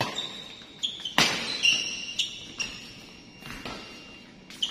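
Badminton rally: rackets strike the shuttlecock in sharp knocks roughly a second apart, with court shoes squeaking briefly on the floor between shots, in a reverberant hall.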